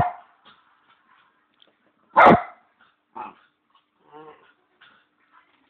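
A Bichon dog barking for its bone: a loud bark at the very start and another about two seconds in, then softer yips and a short whine near the end.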